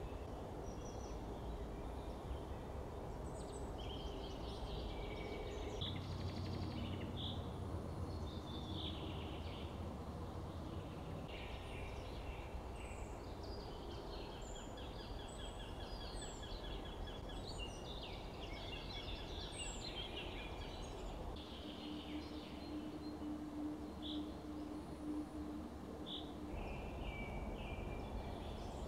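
Several forest songbirds singing and calling over a steady background hiss: scattered chirps and whistles, with a rapid trill about halfway through.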